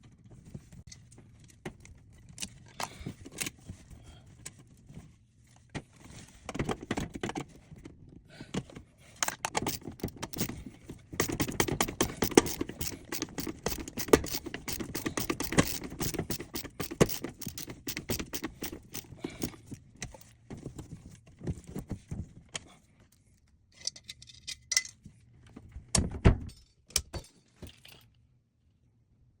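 Metal hardware and tools being handled, clinking and rattling with scrapes and knocks. The busiest rattling comes in the middle, with a loud knock near the end.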